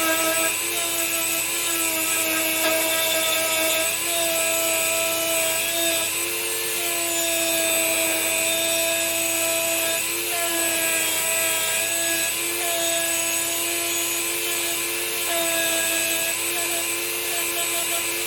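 Dremel rotary tool running with a wire brush on whitemetal kit parts: a steady motor whine that wavers in pitch every second or two as the load on the brush changes.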